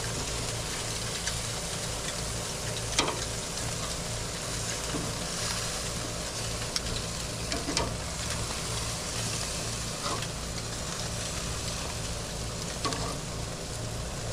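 Pork chops sizzling on a gas grill's grates, a steady hiss over a low rumble, with a few light clicks of metal tongs against the grate as the chops are turned.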